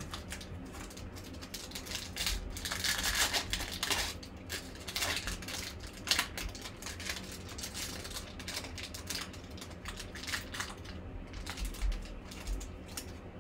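Foil wrapper of a 2020 Panini Select football card pack crinkling and tearing as it is ripped open by hand. The sound is loudest in the first few seconds, with scattered sharper crackles after.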